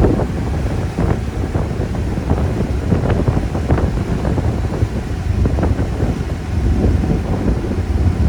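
Wind buffeting the microphone in a 1966 Chevy Impala convertible driving with the top down: a heavy, steady low rumble, with the car's running and road noise underneath.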